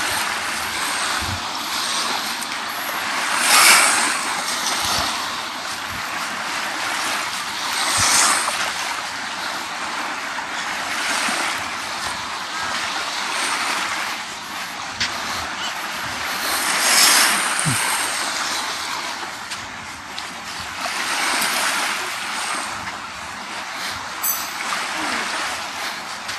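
Small sea waves washing onto a sandy beach: a steady surf wash that swells as a wave breaks every few seconds.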